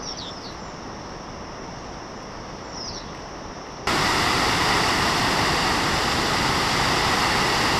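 A small waterfall beside the road rushing: a loud, steady splashing hiss that cuts in suddenly about four seconds in. Before that there is a quieter open-air background with a few short bird chirps.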